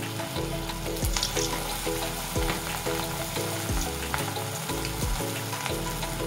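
Cabbage manchurian balls deep-frying in hot oil in a kadhai, a steady crackling sizzle, over background music with a steady beat.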